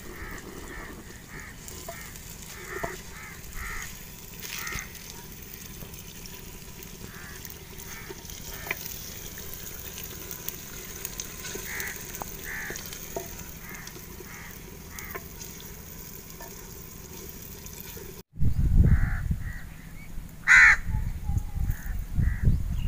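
Chopped onions sizzling as they fry in hot ghee in a clay pot, with short bird calls repeating throughout. About 18 seconds in the sound cuts to a louder low rumble and a single loud call.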